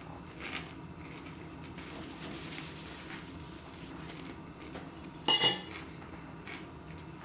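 A single sharp clink of tableware about five seconds in, ringing briefly, amid faint handling sounds.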